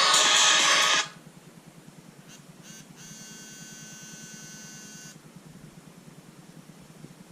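Music from the OnePlus 3T's speaker cuts off about a second in. Then come two short buzzes and a steady, high-pitched buzz of about two seconds from the phone's vibration, a terrible buzzing noise that the owner takes to be not normal.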